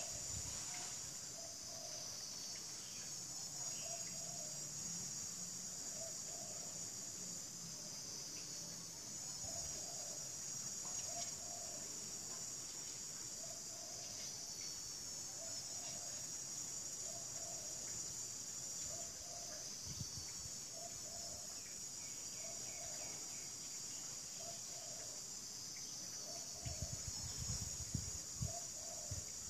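Steady high-pitched insect chorus. Behind it, a lower call repeats roughly once a second, and a few low bumps come near the end.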